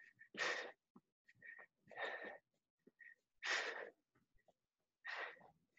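A man breathing hard from exertion: four faint, forceful breaths about a second and a half apart.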